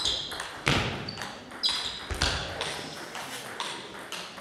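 A table tennis ball bouncing on a sports-hall floor after the rally ends: a few sharp clicks and knocks about half a second to a second apart, growing fainter, with footsteps on the hall floor.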